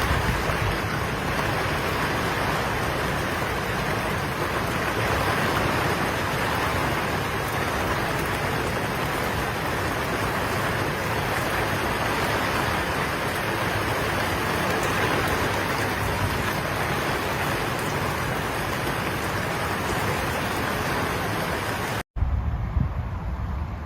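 Heavy rain pouring down steadily, an even, unbroken hiss. About 22 seconds in it cuts abruptly to a lower, gusty rumble of wind on the microphone.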